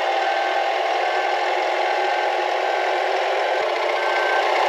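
Compact wheel loader's engine running steadily, with a short high beep repeating about every two-thirds of a second.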